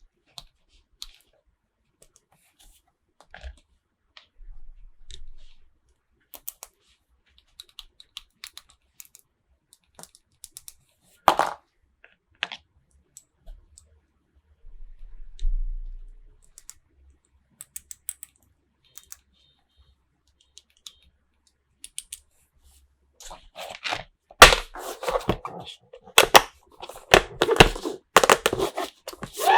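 Small plastic toy parts and packaging being handled, with scattered light clicks and taps and one sharp knock about eleven seconds in. Near the end it turns into dense crinkling and tearing of packaging.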